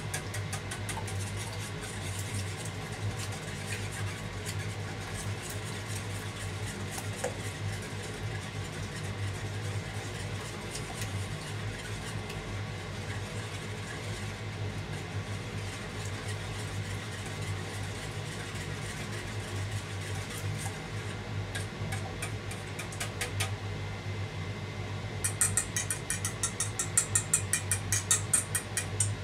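Wire whisk beating eggs in a stainless steel bowl, the wires clicking and scraping against the metal. The strokes turn faster and louder for the last few seconds. A steady low hum sits underneath.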